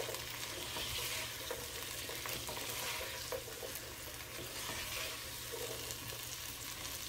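Chicken, peas and carrot strips sizzling in a nonstick frying pan as they are stirred with a slotted nylon spatula. Faint scrapes of the spatula on the pan are heard here and there over a steady sizzle.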